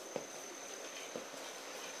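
Lego Maersk train (set 10219) running on plastic track: a steady hiss with a thin high tone, and two sharp clicks about a second apart, near the start and in the middle.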